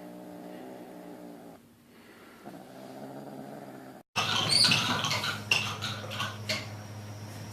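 Domestic cat purring, a low steady rumble that fades briefly and resumes. About four seconds in it cuts off suddenly to louder clattering and knocking.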